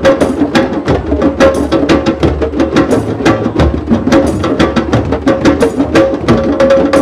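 Several hand drums played together in a fast, steady group rhythm, many sharp strokes a second, with a held pitched note sounding on and off above the drumming.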